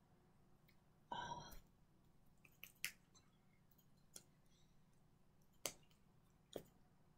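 Near silence broken by a short pitched squeak about a second in, then four or five sharp, separate clicks and taps of a signer's hands and fingers knocking together.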